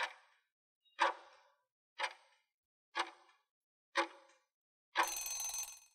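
Countdown timer sound effect: five sharp ticks, one a second, each ringing briefly, counting down the riddle's answer time. About five seconds in, the countdown ends with a noisier sound with ringing tones that lasts about a second.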